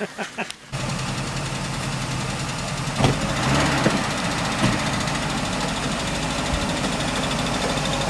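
Engine of a big off-road vehicle on huge low-pressure tyres running steadily at low revs, with two brief knocks in the middle.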